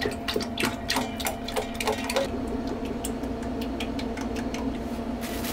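Quick, irregular clicks and light clatter of a pan and utensils on the stove for about two seconds as oil is put on to heat, then fainter ticking over a steady hum.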